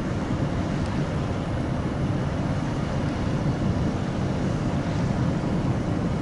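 Steady low rumble of ship engines and machinery, with some wind on the microphone.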